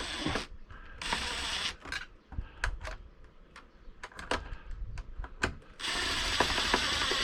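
Scattered sharp clicks and rattles of small parts and wiring being handled as the wire is fed in and clamped back down, with a brief rustle about a second in. A steady hiss begins near the end.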